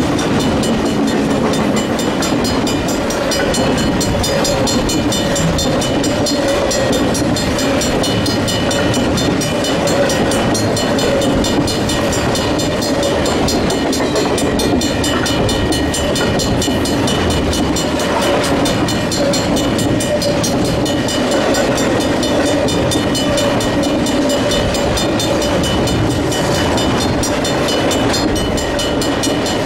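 Intermodal freight train carrying truck trailers on flatcars rolling past at close range: a steady din of steel wheels on rail, with the grade crossing's mechanical bells ringing in an even rhythm.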